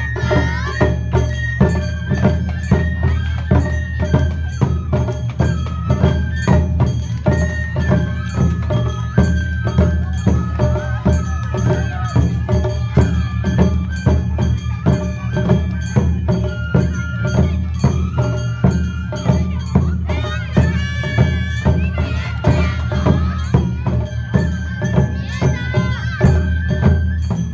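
Japanese festival dance music (hayashi): a high, stepwise melody of held notes over a steady, even beat of drums and clanging metal percussion.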